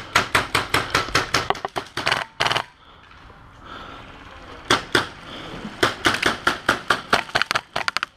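Airsoft guns firing rapid strings of sharp shots, several a second. The shots stop for about two seconds a little before the middle, then start again.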